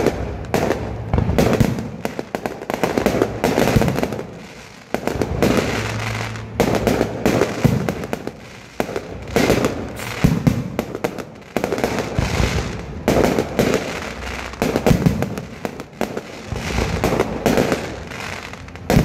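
Aerial fireworks display: a continuous barrage of shell bursts, bangs and crackling, several reports a second with no pause.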